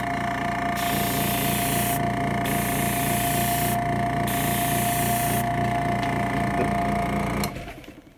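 An airbrush compressor runs with a steady whine over a low pulsing hum, while compressed air hisses through a Point Zero airbrush spraying paint. The hiss drops out briefly about twice as the trigger is let off. The compressor stops near the end.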